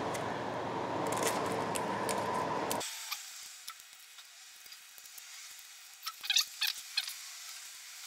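Steady hiss that drops off sharply about three seconds in, then a handful of small sharp clicks of hand tools as the tape is cut off a starter wire, bunched about six to seven seconds in.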